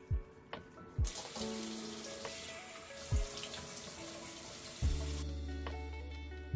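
A tap running water into a sink for about four seconds, starting about a second in and cutting off suddenly. It plays over background music with low drum thumps.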